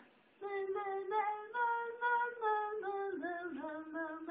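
A woman's voice singing a slow melody of held notes, starting about half a second in.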